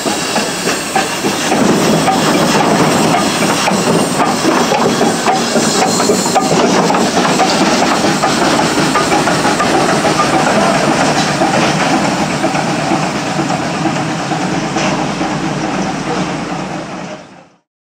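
Steam hissing loudly from an Achenseebahn steam tank locomotive, a dense steady rush that gets louder about a second and a half in and cuts off abruptly near the end.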